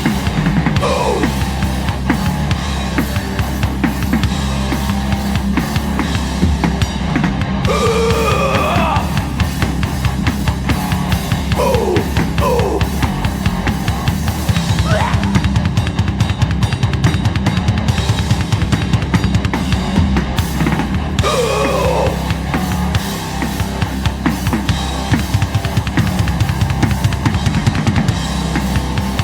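Hardcore punk band playing live: fast, loud drum kit pounding under distorted guitars and bass.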